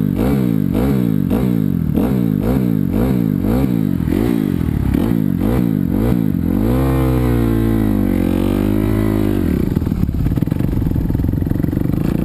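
250cc four-stroke motocross bike engine heard on board, revving up and dropping back in quick surges about twice a second. About six seconds in it runs through smoother, longer swells of revs, and near the end settles to a lower, steadier note.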